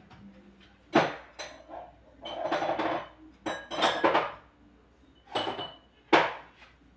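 Dishes and metal utensils clattering and clinking as they are handled and set down on a kitchen counter: a run of sharp knocks, a longer rattle about two seconds in, and a few hits that ring briefly.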